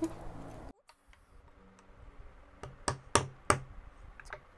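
Wood-carving chisel working a small wooden scoop: a few sharp knocks of steel cutting into wood, several in quick succession about halfway through and two more near the end.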